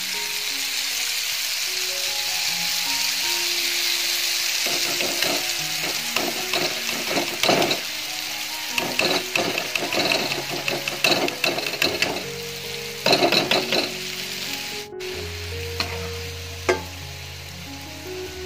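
Gram-flour batter dripping through a perforated ladle into hot oil, sizzling steadily as boondi drops fry. A run of quick metal taps on the ladle sets in about four seconds in and stops a few seconds before the end.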